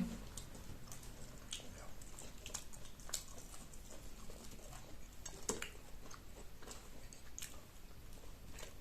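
Close-up chewing of crisp fried paprika rings: soft mouth sounds broken by a scattered handful of short, sharp crunches.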